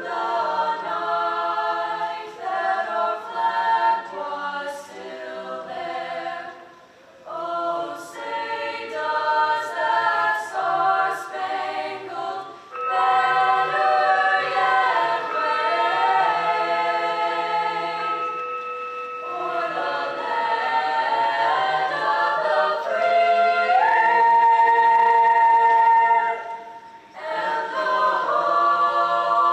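A cappella vocal group singing the national anthem in close harmony with no accompaniment. The phrases end on long held chords, with short breaks for breath between them.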